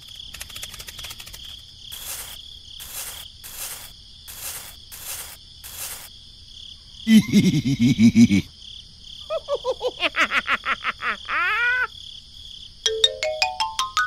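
Cartoon-style sound effects over a steady, high, insect-like chirring: six short hissing pulses, then a brief low buzzy squawk, a run of quick gliding chirps, and a series of tones stepping upward near the end.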